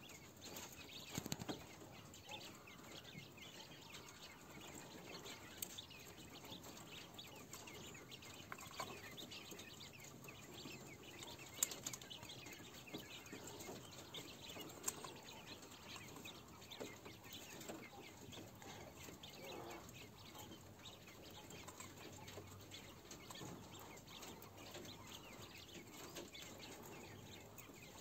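Faint, scattered taps and rustles of Chinese painted quails moving about on a wire-mesh cage floor, with a few sharper clicks now and then.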